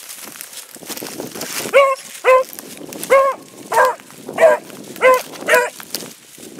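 Beagle giving tongue on a track: seven short, pitched barks in a quick, fairly even series, starting about two seconds in, over a light hiss.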